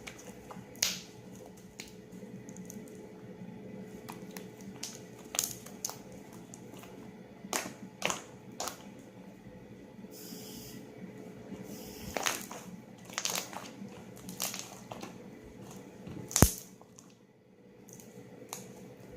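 Homemade glue slime being squished and stretched by hand, giving irregular sharp pops and crackles, the loudest about three quarters of the way through. A short hiss comes about halfway.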